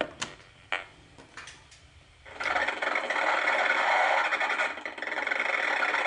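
A microwave meter's audio output: its pulsing cuts off as the Wi-Fi base station is unplugged, leaving a few quiet clicks. From about two seconds in comes a dense, steady crackling buzz, the sound of pulsed Wi-Fi radiation from data traffic.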